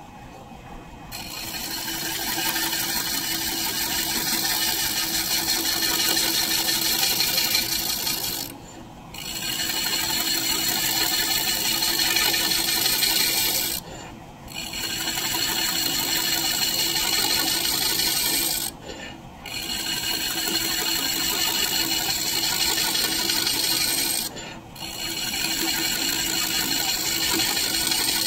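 Large scraper cutting into a maple disc spinning on a wood lathe: a steady scraping that starts about a second in, in passes of about five seconds broken by four short gaps where the tool comes off the wood.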